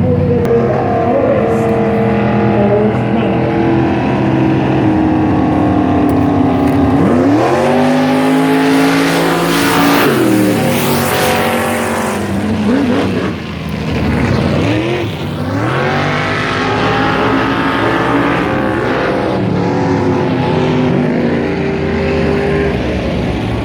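Off-road vehicle engine revving hard, its pitch climbing and dropping several times, with a loud rise about seven seconds in. A spell of hiss joins it around ten to twelve seconds in.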